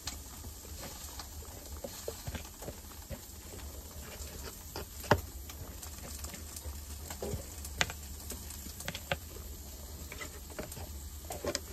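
Table knife scraping and tapping as it spreads a white spread across slices of bread, with one sharper tap about five seconds in.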